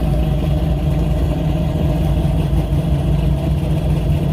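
Car engine idling steadily, with a deep, even rumble.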